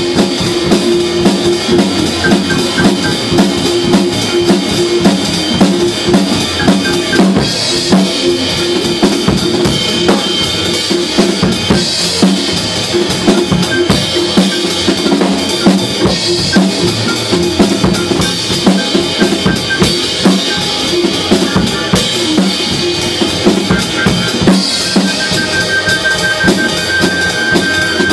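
Acoustic drum kit played in a continuous groove, with bass drum, snare and cymbals struck throughout and a louder cymbal crash every few seconds.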